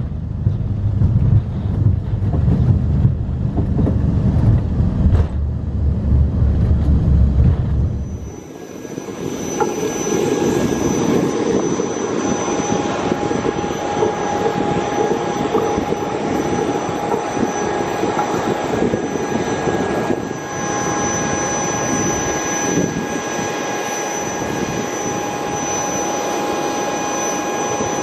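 Deep, steady rumble of an airliner's landing roll heard from inside the cabin. About eight seconds in it gives way to the steady whine of jet engines running on the apron, with several fixed high tones over a hiss.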